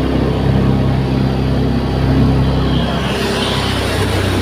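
Motorboat engine running steadily at speed, with water rushing and splashing past the hull; the rushing gets somewhat stronger about three seconds in.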